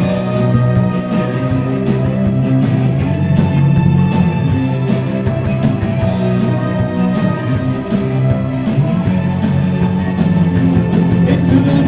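Live rock band playing: electric guitars, bass and drums, with a regular drum beat.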